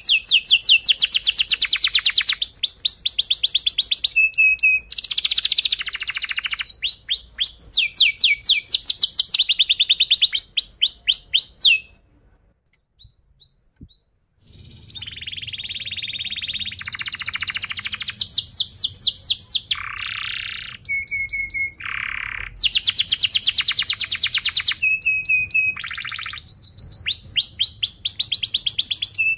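Yellow domestic canary singing a long song of fast, tight rolls and trills with chirps between. The song breaks off for about two seconds midway, then starts again.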